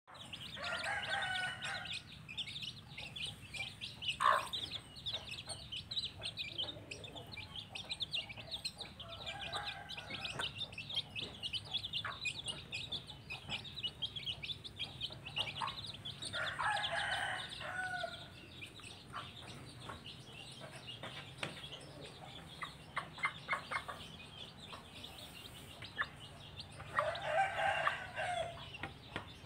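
Young chicks peeping rapidly and continuously, with a mother hen clucking in short bouts every several seconds.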